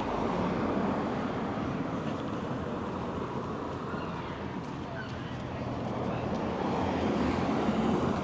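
Steady motor-vehicle engine noise, swelling about a second in and again near the end.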